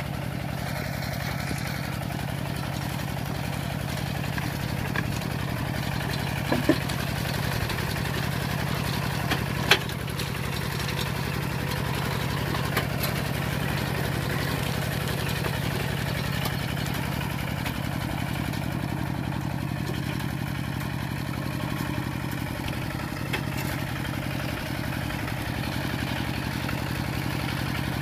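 Kubota RT120 single-cylinder diesel engine on a two-wheel walking tractor, running steadily as the tractor works through paddy mud. A few sharp knocks stand out near the middle.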